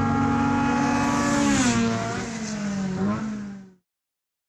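Drag car's engine running at high revs as it races down the strip, its note falling in pitch about halfway through as it goes past and away. The sound cuts off abruptly near the end.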